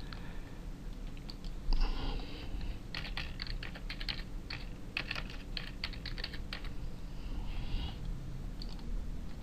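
Typing on a computer keyboard: a quick run of key clicks in the middle, with one louder click about two seconds in.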